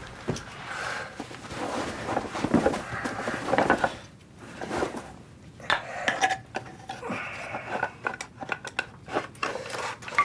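Radio-drama sound effects: a run of small scrapes, light metallic clinks and wooden knocks, as of something being furtively worked at by hand.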